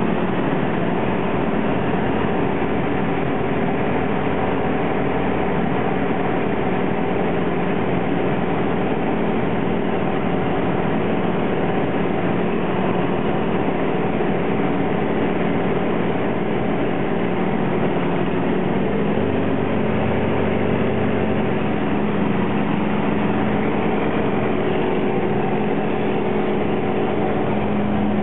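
Yak aerobatic aircraft's radial engine and propeller droning steadily in flight, heard from inside the cockpit. The engine pitch steps up slightly about two-thirds of the way through.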